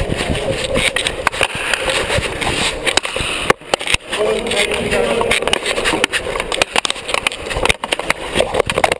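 Unicycle-mounted action camera jolting and knocking as the unicycle is ridden in a unicycle hockey game, a rapid clatter over a steady rumble. Players' voices call out in an echoing sports hall.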